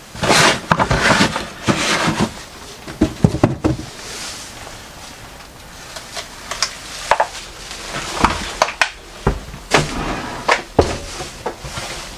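Handling noise from objects in clutter being touched and moved: a string of rustles, knocks and short clatters.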